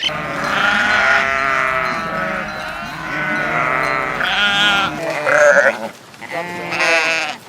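Several sheep or goat-type farm animals bleating, with long calls overlapping one another for the first five seconds, then a few separate shorter bleats.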